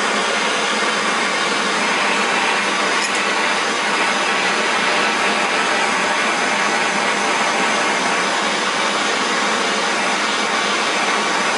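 Handheld gas torch's pencil flame hissing steadily as it heats a clamped twist of copper and brass wire.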